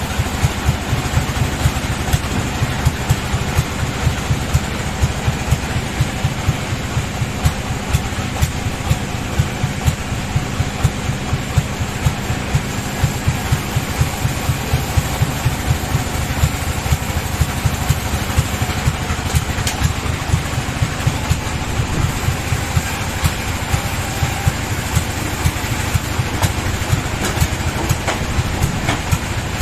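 Sawmill machinery running: a steady engine hum with a regular pulsing beat.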